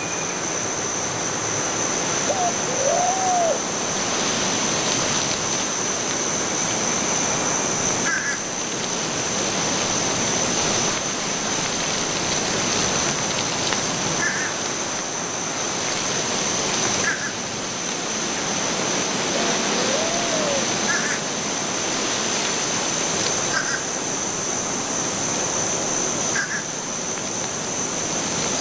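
Outdoor nature ambience: a steady rushing noise like running water, with a continuous high thin whine, short high chirps every few seconds, and two low hooting calls, about 3 seconds and 20 seconds in.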